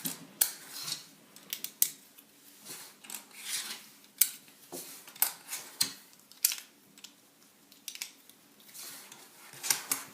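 Plastic Lego pieces clicking and clattering as tiles are handled and pressed onto bricks: irregular sharp clicks, a few per second, with light rustling in between.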